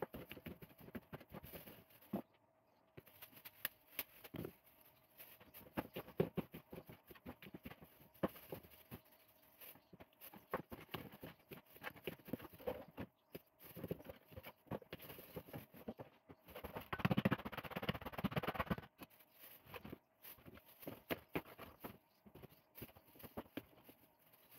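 Thin plastic bag crinkling and rustling as cheese balls are picked up by hand and dropped into it, with soft taps and scattered small clicks. A louder stretch of crinkling comes about two-thirds of the way through.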